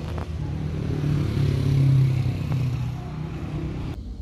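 A motor vehicle's engine passing on the street, its low hum growing louder to a peak about two seconds in and then fading.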